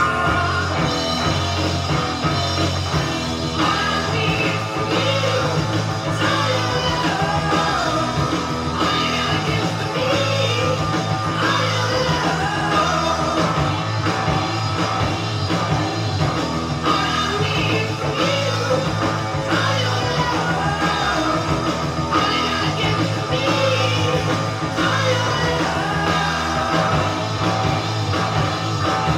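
Rock song with singing, played from a vinyl record on a turntable through a vintage hi-fi system: an Akai AM-U3 amplifier and Pioneer CS-757 speakers.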